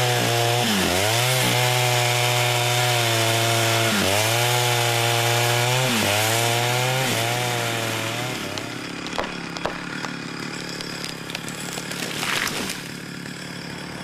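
Chainsaw running hard under cutting load, its pitch dropping and recovering four times as it works through wood. It dies down about eight seconds in, leaving a quieter stretch with scattered cracks and snaps.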